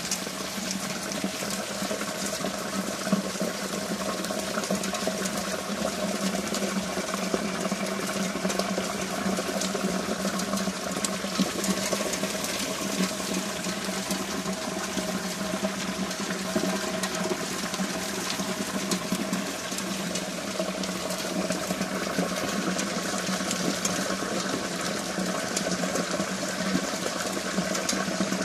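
Steady heavy rain from a thunderstorm, pattering densely on hard surfaces, with a steady low tone running underneath.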